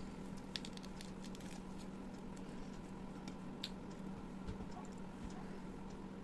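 Close-miked eating sounds of rice, egg curry and fried chicken: scattered small wet clicks and squishes, most of them in the first second and a half and one sharper click near the middle, over a steady low hum.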